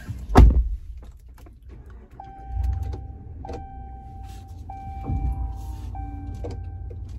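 Car door shutting with a thud, then the car's engine starting and running. A warning chime follows, a steady tone repeated about once a second.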